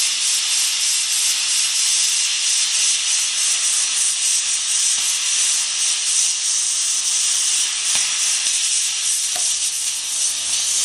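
Compressed air hissing steadily out of an opened valve on the air compressor's tank, bleeding the tank pressure down.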